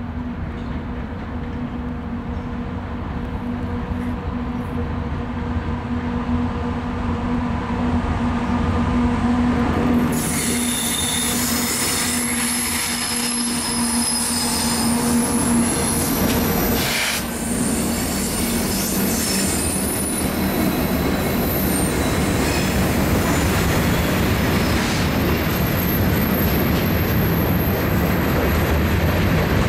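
A diesel-hauled freight train approaches and passes close by. The locomotives' steady engine note grows louder as they near and goes past about halfway through. The loaded cars follow with a steady rolling rumble and high-pitched wheel squeal.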